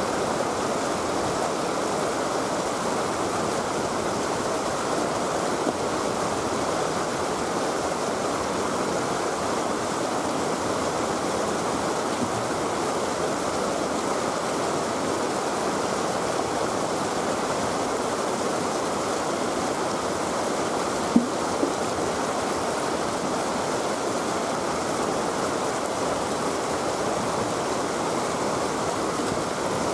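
Steady rush of river water pouring over a low weir. A single brief knock about two-thirds of the way through.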